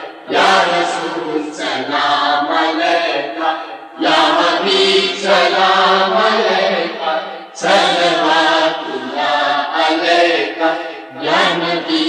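Devotional chanting of an Urdu naat, sung in four long phrases that each begin about every four seconds.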